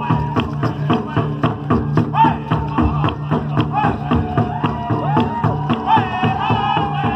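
Powwow song for a fancy war dance: a drum struck in a fast, steady beat, with voices singing over it in gliding, wavering notes and a long held note near the end.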